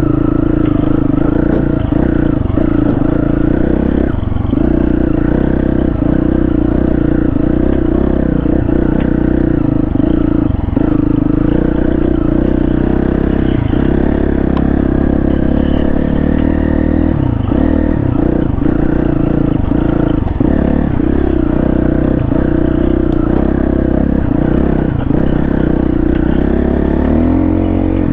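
Dual-sport motorcycle engine running steadily while riding, rising in pitch near the end.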